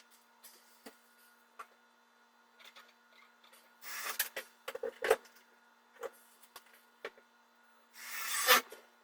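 Hand work during a faucet install: scattered small clicks and knocks, with two louder rubbing scrapes, one about four seconds in and one near the end. A steady low hum runs underneath.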